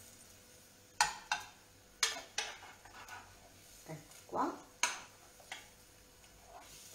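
A spoon knocking and scraping against a small frying pan as a sauce is spooned out of it, with about five sharp knocks in a loose, uneven rhythm.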